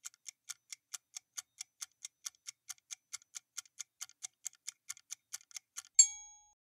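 Quiz countdown-timer sound effect: a fast, even clock-like ticking, about four to five ticks a second, then a loud bright bell-like ding about six seconds in that marks the correct answer being revealed.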